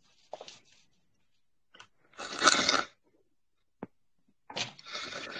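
Short rustling, crackling noises picked up by a voice-chat microphone: a brief one, a louder one about two seconds in, a single sharp click, then more rustling near the end.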